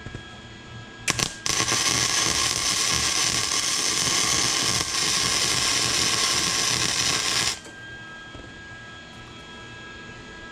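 Electric arc welder: two brief arc strikes about a second in, then a steady hiss of welding for about six seconds that cuts off abruptly, laying a weld to fix a nut onto a broken cylinder-head stud.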